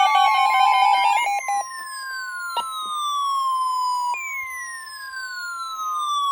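Emergency alert tones ahead of a tornado warning: rapid beeping stops about a second in and gives way to a steady alarm tone, with siren-like sweeps falling in pitch over it, each about three seconds long.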